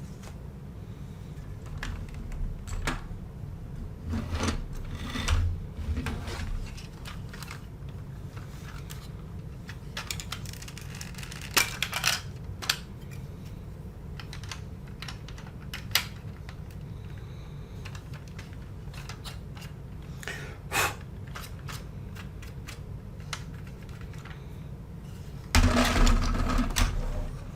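Plastic LEGO pieces clicking and clattering as they are handled and sorted, in scattered clicks with a louder rattle of pieces near the end, over a steady low hum.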